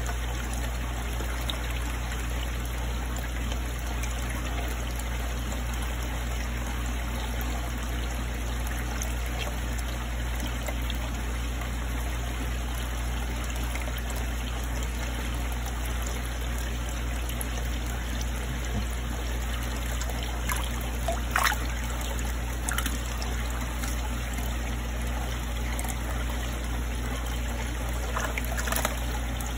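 Water trickling steadily in a koi fry tank, over a steady low hum. A couple of short, sharper sounds come through about 21 and 29 seconds in.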